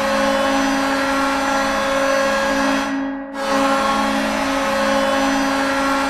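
Reading Royals arena goal horn blowing in two long, steady blasts, with a short break about three seconds in.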